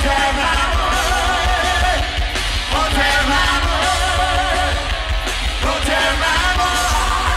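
Rock band playing live, with a singer holding long notes with vibrato over heavy bass and drums, heard through a phone's microphone in the crowd.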